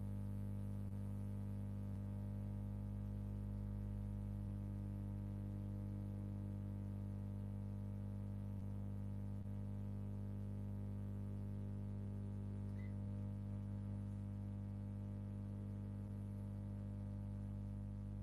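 Steady low electrical hum with a faint buzz of higher overtones on the stream's audio feed, with no voice coming through. The remote guest's audio has cut out, which the host puts down to his microphone or connection.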